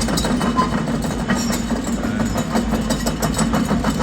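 Heavy diesel construction machinery running steadily, with a low hum and a fast, even clatter.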